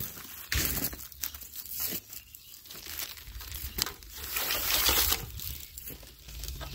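Thin plastic mailer bag crinkling and rustling as it is handled and pulled open, in irregular bursts, loudest about five seconds in.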